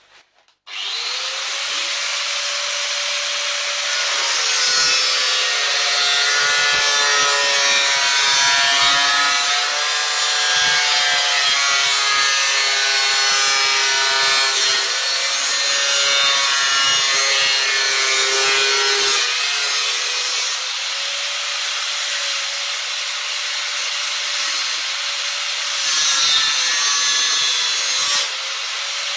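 Angle grinder cutting through a computer's sheet-steel case with an abrasive disc. The motor starts up abruptly about a second in, then runs with a whine that wavers in pitch as the disc bites into the metal.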